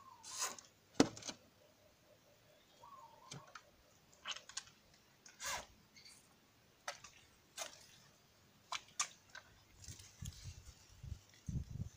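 Scattered light clicks and taps from handling a phone, with a brief faint squeak about three seconds in. Low rustling and rumbling near the end as the phone brushes against plant leaves.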